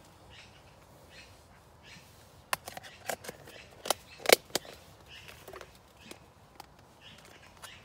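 Clear plastic food tubs clicking and knocking as they are handled and set down: a quick run of sharp clicks from about two and a half seconds in, the loudest near four seconds.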